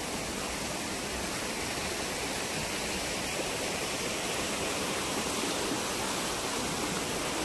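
Steady rushing of moving water, an even hiss with no breaks.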